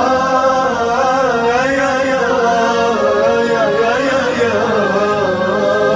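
Background music: a voice singing an Arabic nasheed in long, wavering melodic lines, with no pause.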